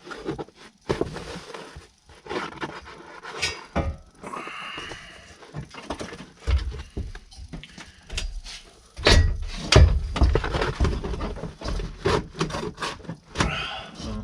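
Irregular knocks and clunks of things being handled and bumped, with a few heavier thumps about two-thirds of the way through.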